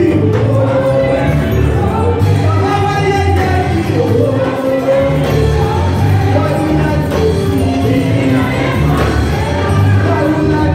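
Loud gospel music: a group of voices singing together over a band with a steady, heavy bass line.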